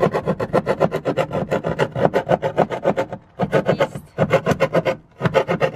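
A small hand saw blade on a folding multi-tool cutting out the corner of a countertop in quick back-and-forth strokes, about nine a second. The sawing comes in runs, with short pauses about three, four and five seconds in.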